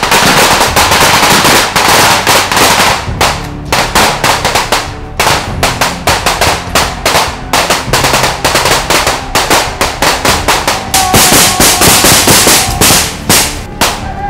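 Rapid automatic rifle fire from several soldiers, shots overlapping in long bursts. It is near-continuous for the first few seconds, then comes in shorter volleys with brief gaps, and thickens again near the end.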